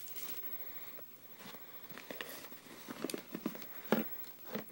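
Cardboard product box being handled and its flaps moved: faint scattered rustles and soft taps, with a few sharper knocks in the second half.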